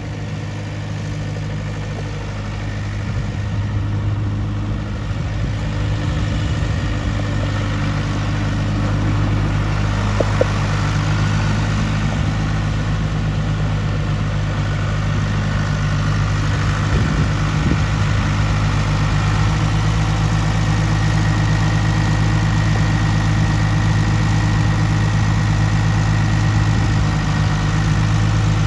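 John Deere 2130 tractor's three-cylinder diesel engine idling steadily, with one short click about ten seconds in.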